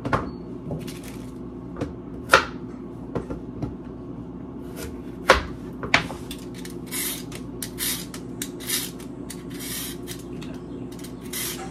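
Kitchen handling while carrots are prepared for juicing: a few sharp knocks of things set down on the counter, then from about halfway a quick run of rasping strokes of a vegetable peeler scraping carrots.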